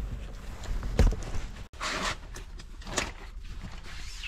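Handling noises as a shower curtain is pulled out and folded around a small shower stall: a sharp knock about a second in, then short rustles of the curtain.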